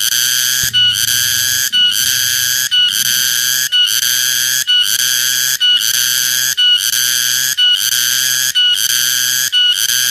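Cicada (tonggeret) calling loudly: a shrill, piercing buzz broken by a brief pause about once a second, with a short clipped note in each pause.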